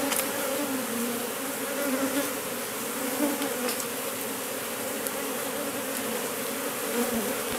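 A large swarm of honey bees buzzing in a steady, slightly wavering hum as the colony clusters on and enters a wooden hive box, hived from a hollow log with smoke.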